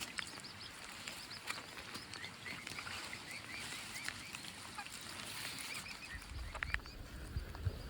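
Waterfowl calling softly while feeding: a run of short, faint, high chirping calls, with scattered light clicks.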